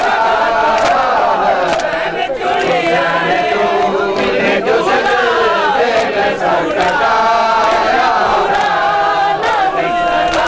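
Many men's voices chanting a Muharram lament (noha) together, with regular sharp slaps of hands beating on bare chests (matam) keeping time.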